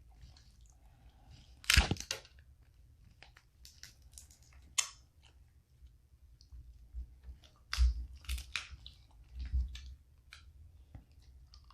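Close-miked eating of boiled snow crab legs: chewing, with the cracking and crunching of crab shells in irregular short bursts. The loudest bursts come about two seconds in and again around eight seconds.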